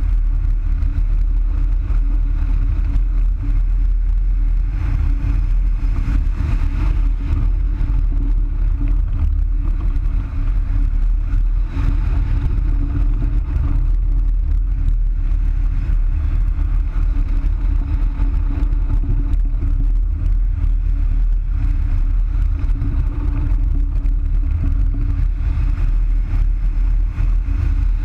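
Wind buffeting the microphone of a wing-mounted camera on a hang glider in flight: a steady, dense low rumble with a faint low hum underneath.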